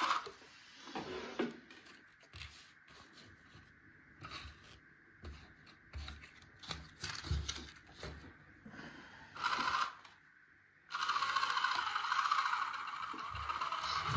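Small clicks and knocks as a model tractor is handled, with short whirs of a small electric gear motor. Near the end the motor runs steadily for about four seconds.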